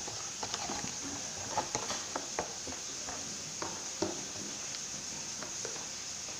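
Homemade glue slime being squeezed and kneaded by hand, giving a run of small clicks and pops over the first four seconds; the slime has come out a little stiff.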